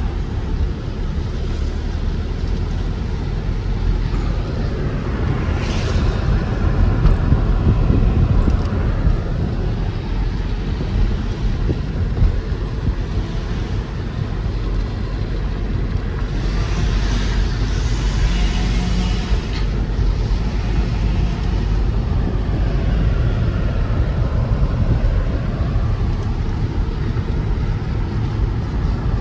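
Car road noise heard from inside the cabin while driving on wet pavement: a steady low rumble with tyre hiss. The hiss swells briefly about six seconds in and again for a few seconds past the middle.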